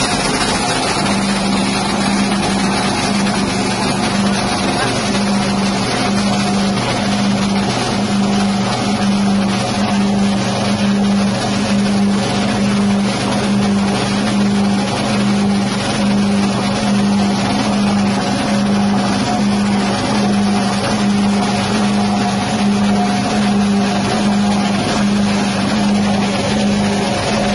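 Rice husk grinding machine running under load: its 6.5 hp petrol engine and spinning blade rotor mill rice husks into bran with a loud, steady drone and a strong hum that sets in about a second in.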